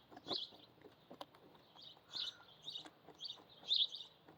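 A small bird chirping over and over: short, high chirps coming about twice a second, with a few faint clicks in between.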